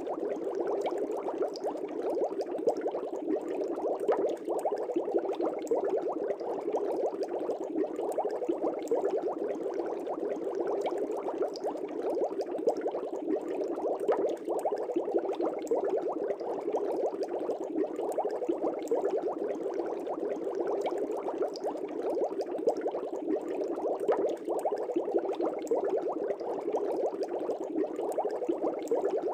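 Air bubbles streaming up through aquarium water: a steady, dense bubbling with no let-up.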